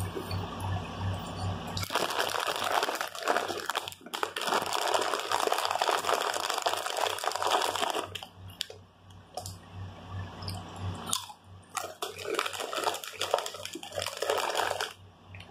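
Close-up chewing and crunching while eating, with a crinkly foil chip bag of Doritos rustling loudly in two long spells, the second near the end.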